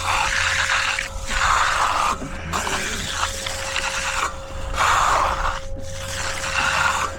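A hand tool scraping over fresh concrete in repeated strokes, about one a second, over a steady low mechanical hum.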